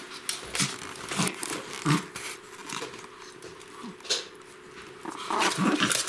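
Pomeranian puppies play-fighting with an adult Pomeranian, with scuffling of fur and paws and short puppy growls now and then. It gets busier and louder near the end.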